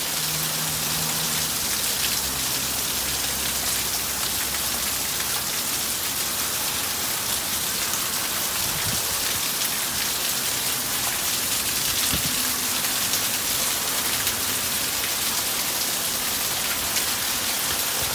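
Heavy rain pouring down steadily, a dense even hiss of countless drops with no let-up.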